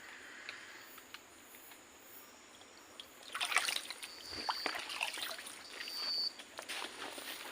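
Water splashing and sloshing in irregular bursts in a forest stream, starting about three seconds in. Two short high-pitched whistle-like tones sound over it, one near the middle and one about a second later.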